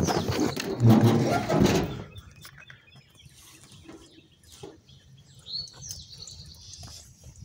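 Rustling and knocking of a phone camera being handled and moved for about two seconds, then a quieter stretch where a few bird chirps are heard.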